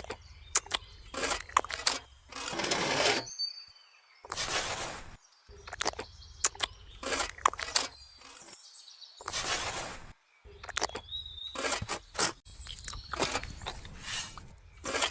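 Repeated short scraping swishes and many sharp clicks and taps, broken by abrupt cuts.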